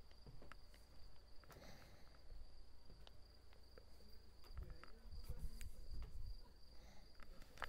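Faint steady high-pitched trill of insects, with a few soft clicks and a low rumble swelling about halfway through.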